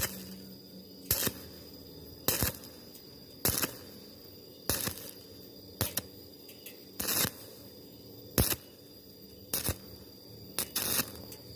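Stick-welding arc on 0.8 mm galvanized thin metal, struck in short crackling bursts about once a second, about ten in all, with the arc broken between them.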